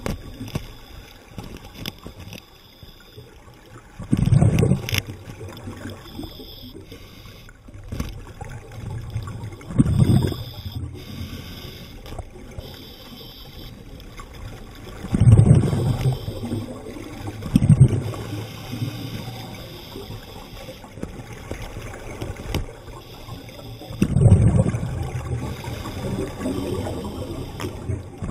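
Underwater sound of a diver's exhaled air bubbling out in about five bursts, several seconds apart, with a steady low water rush between them.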